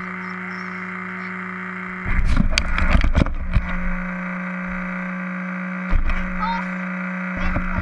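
Steady hum picked up by the onboard camera of an RC car. About two seconds in come loud knocks and scraping as the overturned car is handled and set back on its wheels, with another short burst of handling knocks about six seconds in.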